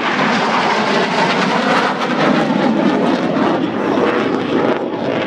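Two fighter jets flying past overhead, their jet engines making a loud, steady noise.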